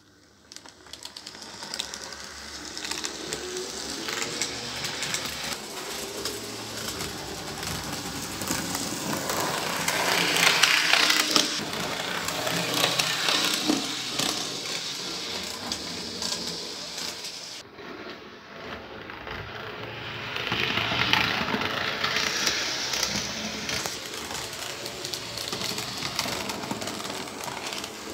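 Model railcar running on the layout track: the electric motor's whirr and the wheels rattling over the rails, rising as it passes close, once near the middle and again about three-quarters of the way in.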